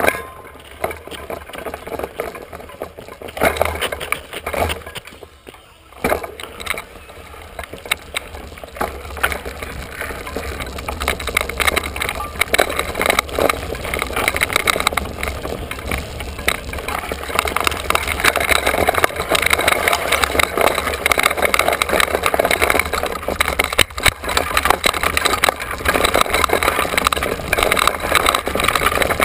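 Mountain bike rolling fast over a dirt trail, heard from a camera mounted on the bike or rider: tyre noise on the dirt, a constant clatter of rattles and knocks from the bike and mount, and wind rumble on the microphone. It grows louder over the first ten seconds or so as the bike picks up speed.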